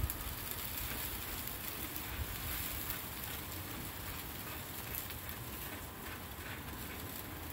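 Charcoal fire crackling and chicken wings sizzling over the coals on a grill rotisserie, a steady crackle with a low rumble underneath.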